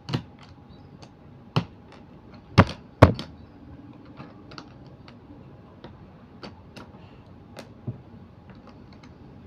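Small plastic Lego-style building pieces being handled and snapped together: scattered sharp clicks and taps, the loudest two close together about three seconds in.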